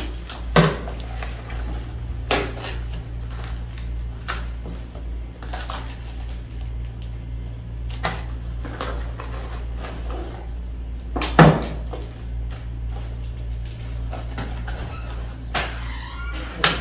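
Hands opening a parcel and handling its box and packaging: a few sharp knocks and clacks, the loudest about half a second in and about eleven seconds in, with softer handling noise between, over a steady low hum.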